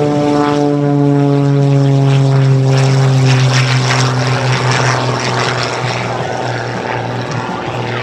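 Extra 300S aerobatic plane's piston engine and propeller flying past: a loud drone whose pitch falls slowly as it goes by, fading toward the end.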